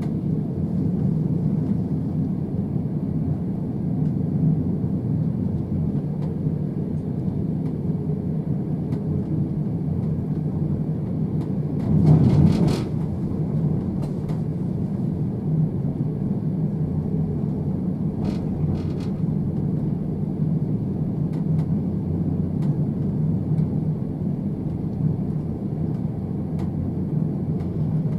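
Passenger train heard from inside the carriage: a steady low rumble of the wheels running on the track. About twelve seconds in there is a brief louder rush, and a few short sharp clicks follow later.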